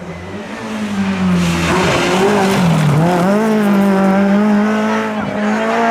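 Peugeot 106 rally car's engine held at high revs on a stage, its pitch dipping about three seconds in and then climbing again, with a brief rush of tyre noise before the dip.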